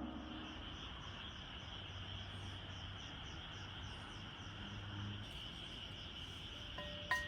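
Insects chirping: a faint, steady high trill with a quicker pulsing above it, about four pulses a second. A sharp click comes near the end.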